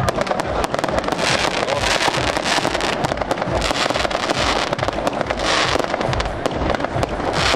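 Show fireworks going off in a dense barrage: bangs in quick succession throughout, with stretches of crackling.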